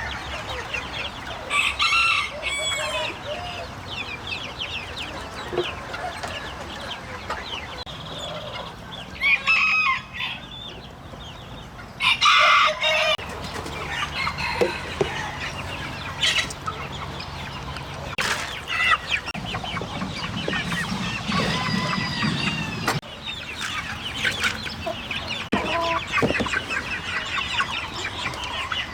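A flock of chickens clucking continuously, with roosters crowing loudly three times: near the start, and twice more close together in the middle.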